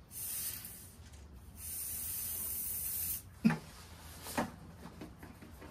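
Aerosol can of starting fluid spraying in two bursts, a short one and then a steady hiss of about a second and a half, to get a snowblower engine that won't start to fire. Two light knocks follow.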